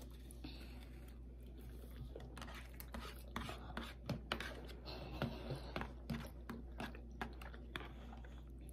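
Eating sounds at a table: chewing along with irregular light clicks and taps of forks against plates, over a low steady hum.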